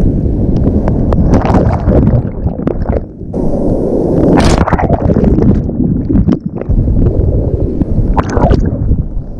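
Seawater sloshing and gurgling around a GoPro action camera as it drops into the surf and goes under, heard muffled and dull, with wind buffeting the microphone once it is back above the water.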